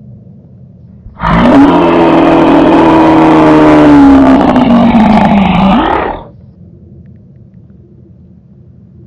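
A very loud, distorted pitched blare about five seconds long. It starts about a second in, dips slightly in pitch and rises again near the end, then stops abruptly, leaving a faint low hum.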